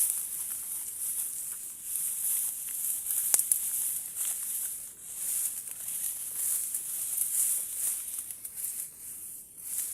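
A high-pitched chorus of insects that swells and fades over and over. Under it are light rustling and a single sharp click about three seconds in.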